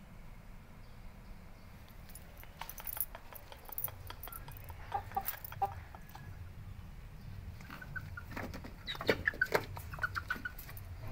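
Rooster giving short low clucks: a few just past the middle and a busier run near the end, with sharp clicks mixed in.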